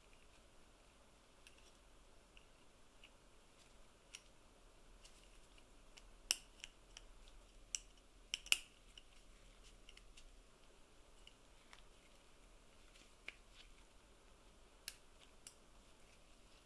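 Small metal parts of an antique hand-crank massage tool clicking as a steel shaft with brass fittings is fitted into a metal bracket by hand: scattered sharp light clicks, most of them bunched in the middle with the loudest pair about eight and a half seconds in.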